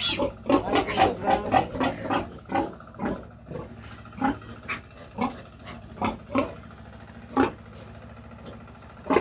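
Pigs grunting in short repeated bursts. The grunts come quick and close together for the first two seconds, then every half second to a second.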